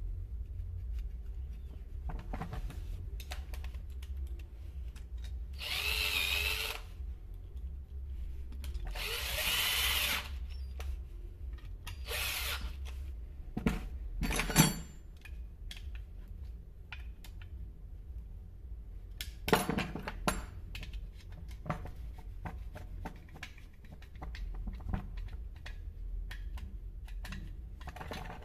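Three short whirring runs of a power drill, about a second each, the last one shorter, while the chainsaw's muffler is being screwed back on. Scattered clicks and knocks of tools and parts follow.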